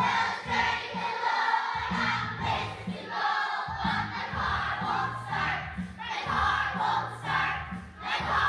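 A group of children singing a song together over an instrumental accompaniment with steady bass notes.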